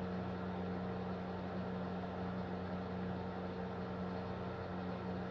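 A steady low electrical hum with an even hiss, like a running appliance or fan in the room. It holds level and pitch throughout.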